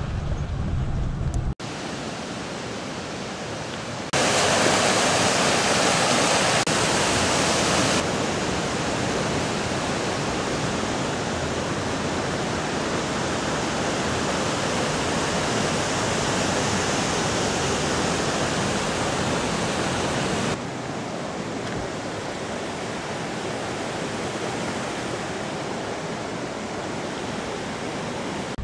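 Steady rushing noise of the Fall River's water tumbling over rocks, which follows a sudden cut from a car's low rumble about a second and a half in. The loudness jumps abruptly a few times, loudest for a few seconds near the start.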